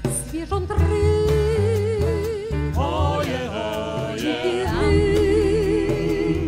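Live performance of a Polish tango song: a female singer holds long notes with a steady vibrato over a small band of piano, violin, double bass and drums. Near the middle several parts sound together more thickly before the single held voice returns.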